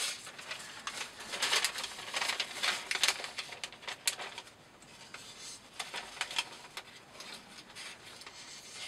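A Spyderco Para Military 2 Maxamet knife blade slicing through newspaper, with scratchy, crackling paper noises as the sheet tears and rustles, louder in the first half. The edge is sharp but rough and toothy rather than smooth.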